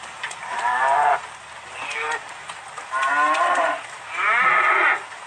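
Cows mooing: three long, loud moos and a shorter, fainter one in between.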